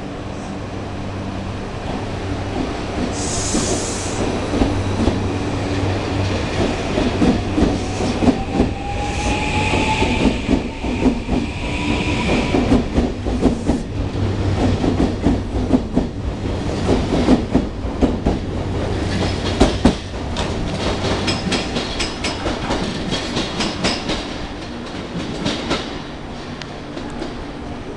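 JR Kyushu 821 series six-car electric train pulling out: a short hiss about three seconds in, then a whine from the traction motors that rises slowly in pitch as it gathers speed. A steady clatter of wheels over rail joints and points follows as the cars pass and draw away, fading near the end.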